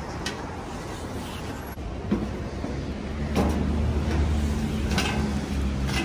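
A road vehicle's engine running on the street below, its low hum growing louder about three seconds in. A few light metallic knocks of footsteps on aluminium scaffold stair treads come in over it.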